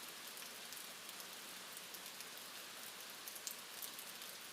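Steady rain falling: a soft, even hiss with scattered small drip ticks.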